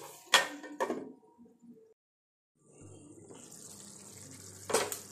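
A metal spoon knocks and scrapes against an aluminium kadai a few times while stirring chicken roast masala. After a sudden cut, a steady hiss comes from the gravy simmering in the pan, with one sharp clank near the end.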